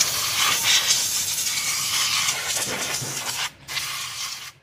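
Hand-pumped pressure sprayer jetting liquid from its wand onto an exposed motorcycle engine, a steady hiss. It breaks off briefly about three and a half seconds in, resumes, and stops near the end.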